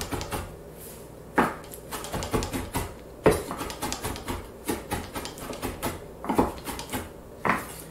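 Kitchen knife chopping a pile of fresh lemon balm leaves on a wooden cutting board: a quick, irregular run of knocks as the blade strikes the board, with a few louder chops among them.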